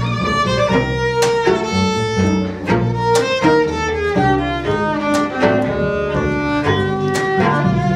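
A string quartet of violin, viola, cello and double bass plays a lively piece: many short, crisply attacked notes over a low bass line.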